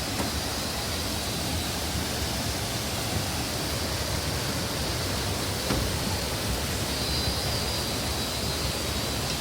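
Waterfall: a steady rush of water falling over rock, with no breaks or changes.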